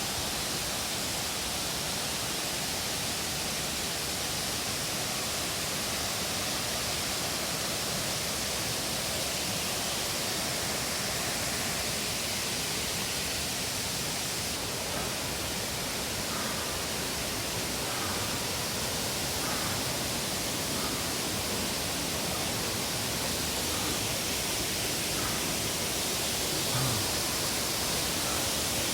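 Steady rush of water tumbling down the cascades of a tiered waterfall.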